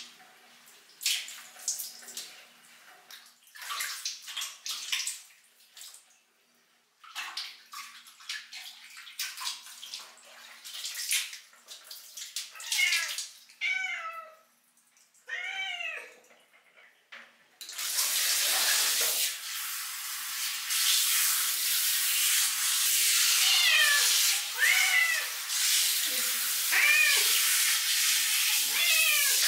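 Water splashing and sloshing as a wet cat is handled in a bucket of bath water. The cat meows several times in protest, and a handheld shower head then sprays steadily onto it, with more meows over the spray.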